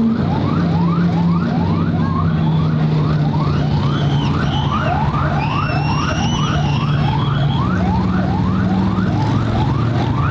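Police escort siren sounding continuously, a fast repeating rising whoop of about three sweeps a second, with a car engine's steady drone underneath.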